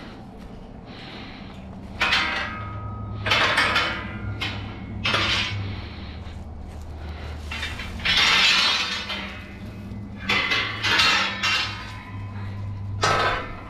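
A series of loud clattering, clinking crashes, like metal or glass being knocked about, each ringing briefly, over a steady low hum.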